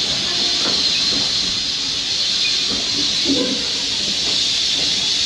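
Steam locomotive letting off steam: a steady, unbroken hiss.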